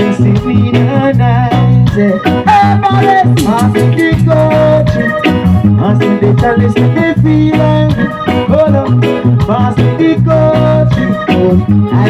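Live reggae band playing loud through a stage sound system, with electric guitar, bass and drums keeping a steady beat and a man's singing voice over the top.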